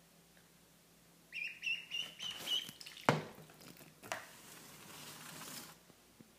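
Duckling peeping: a quick run of short, high peeps lasting about a second and a half. A sharp tap follows about 3 s in, the loudest sound, then a fainter tap and a rustle for about a second and a half.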